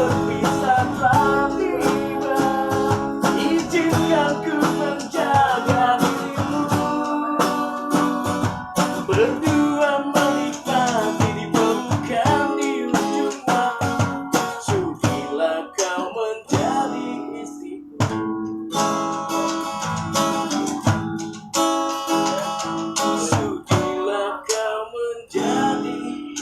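A street busker singing to his own acoustic guitar, strumming chords; the voice is clearest in the first half, and the second half is mostly the strummed guitar.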